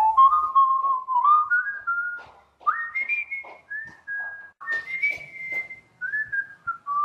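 A whistled tune: single clear notes held briefly, stepping up and down with short slides between them, with a few faint clicks in the gaps.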